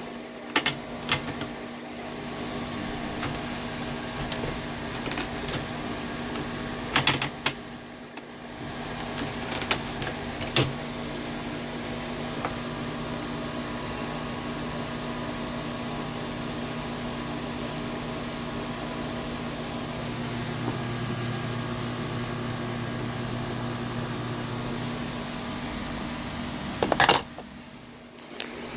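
Steady machine hum with a few sharp clicks, heard during cartridge reloading: a cluster about a second in, more around seven and ten seconds, and a louder pair near the end.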